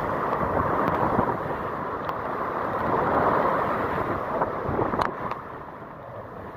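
Hurricane wind gusting with driving rain and buffeting the microphone. It rises and eases in waves, then dies down near the end, with a sharp click about five seconds in.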